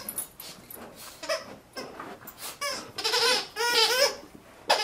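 Squeakers inside a Kyjen Invincibles plush snake dog toy squeaking as the dogs chew and squeeze it. There is one squeak about a second in, then a quick run of squeaks that rise and fall in pitch in the second half.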